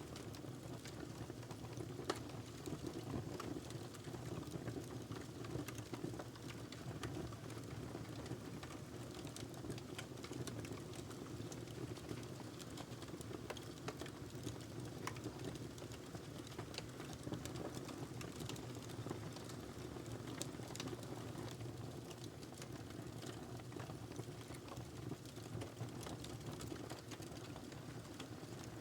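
Log fire burning in a fireplace: a steady low rustle of flames with frequent sharp crackles and pops of burning wood, one louder pop about two seconds in.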